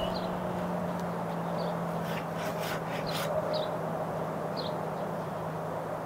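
Hand saw rasping through a small tree trunk at ground level in a short run of quick strokes about two seconds in. Short bird chirps come every second or so over a steady low hum.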